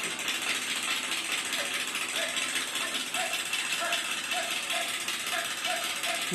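Steady, rapid mechanical rattling like a ratchet. From about a second and a half in, faint short high tones repeat about twice a second.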